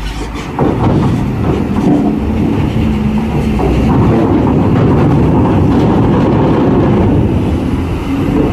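Heavy diesel truck engine running hard under load as the truck drives onto a ferry. It jumps louder about half a second in and then holds steady.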